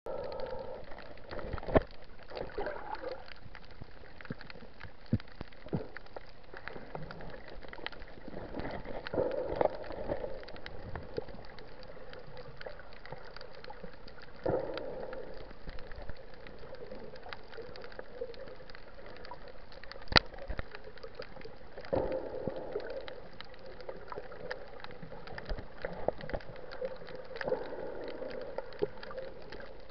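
Muffled underwater noise recorded by a camera moving through shallow sea water: a steady wash of water sound that swells every few seconds, with scattered sharp clicks and knocks.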